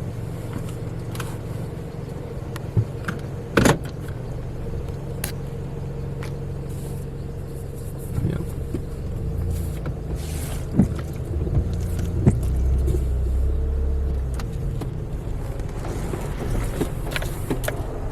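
Car running and driving slowly, a steady low engine hum with a few sharp clicks and knocks. A deeper rumble swells for a couple of seconds past the middle.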